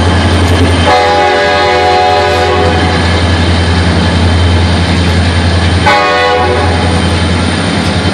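Departing Norfolk Southern freight train's diesel locomotives running with a steady low drone. About a second in, a locomotive air horn sounds a chord of several tones in one long blast of about five seconds.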